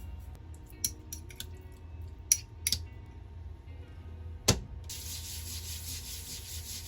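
Kitchen handling sounds: a few light clicks and knocks, a sharp knock, then a steady hiss lasting about two seconds that starts and stops abruptly.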